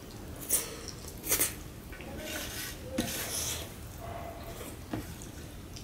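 Fingers scraping and gathering food on a stainless steel plate, with a few short sharp clinks against the metal and eating sounds.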